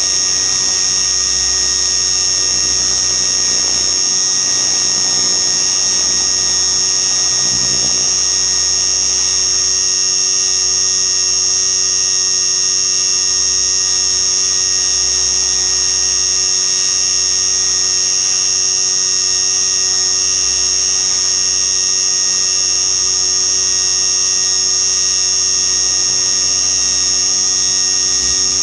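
RC helicopter's motor and rotors running at a steady high whine during flight. A low rumble of wind on the microphone comes and goes underneath.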